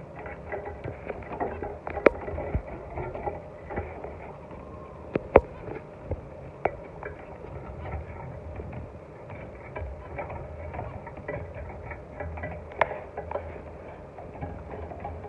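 Zebra finches moving about, making a steady scratchy patter and rustling. Four sharp clicks stand out, the loudest about five seconds in.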